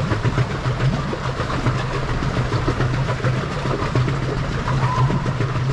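Pedal boat's paddle-wheel drive churning the water under steady pedalling: a low pulsing thrum with splashing and small clatters.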